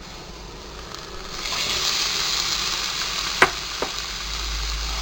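Boiled tapioca sizzling in hot oil with sautéed onion in a frying pan, the sizzle growing clearly louder about a second and a half in. A sharp click about three and a half seconds in, with a softer one just after.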